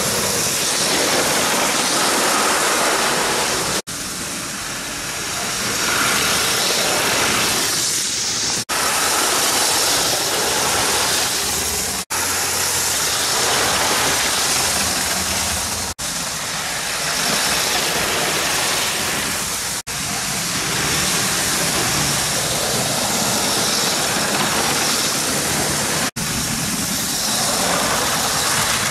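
LEGO toy train running on plastic track: its small electric motor whirs and its wheels rattle over the rails, heard as a continuous hissing noise that rises and falls in level. There are several brief dropouts.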